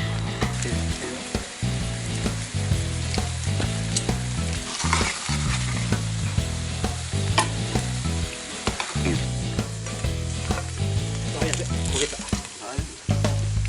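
Food sizzling steadily as it fries in a pan, with a few short clicks now and then.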